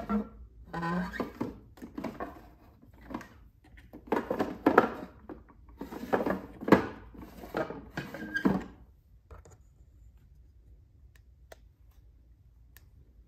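Clear plastic drawers of a stacked desktop organizer sliding open and shut, with a string of plastic scrapes and knocks that stops after about nine seconds.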